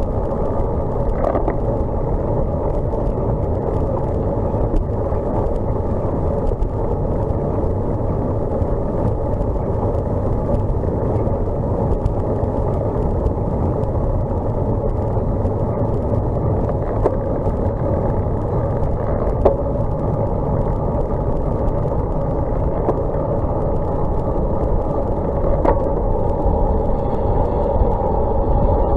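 Steady, muffled rush of wind and road noise from a road bicycle riding fast on wet pavement, as picked up by a bike-mounted camera's microphone. It has a few faint clicks and grows slightly louder near the end.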